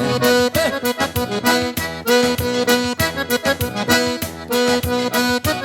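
Accordion playing an instrumental break in a lively sertanejo dance tune, with a steady drum beat under it.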